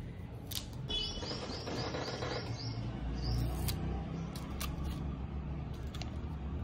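A bird chirping: a quick run of about seven high notes, roughly four a second, starting about a second in. A few short clicks and a low steady hum sit underneath.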